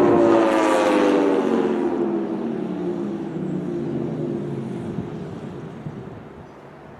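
Outdoor tornado warning siren winding down: several tones sound together, sliding steadily down in pitch and fading out over several seconds.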